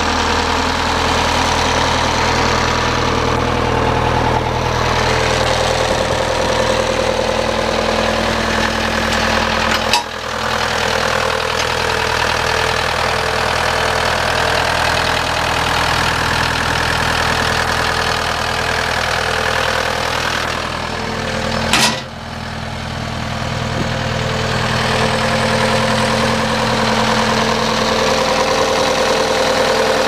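Diesel engine of a Bobcat T190 tracked skid steer idling steadily. Two brief sharp clicks break in, about a third and two thirds of the way through.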